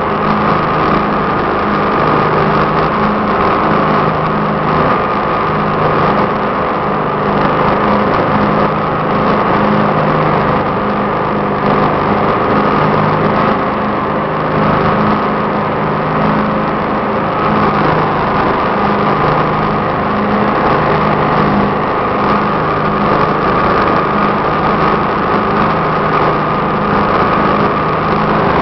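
Craftsman 18-horsepower lawn tractor's opposed-twin engine running steadily, its even drone unchanged throughout.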